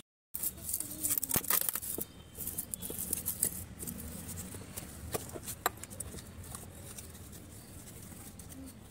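Dry twigs and roots rustling and crackling as they are handled and pushed between the stones of a mud-and-stone stove, with a dense run of sharp snaps and clicks in the first few seconds and a few single snaps later.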